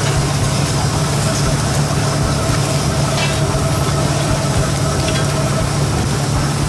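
Steady low hum of a running motor or engine, with a faint thin tone above it that fades out near the end.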